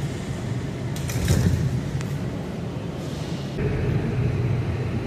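Steady low rumble inside a Washington Metro railcar, with a brief rush of hiss about a second in and a sharp click at about two seconds.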